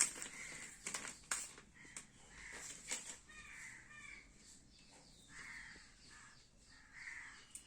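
Faint bird calls, several separate calls spread through the pause. A few sharp clicks near the start come from the phone and packaging being handled.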